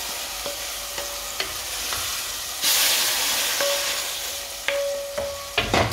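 Hot tempering oil with seeds, curry leaves, garlic and chillies sizzling as it is scraped from a small pan into a pot of okra curry with a wooden spatula. The sizzle swells about two and a half seconds in, and a few sharp clicks come near the end.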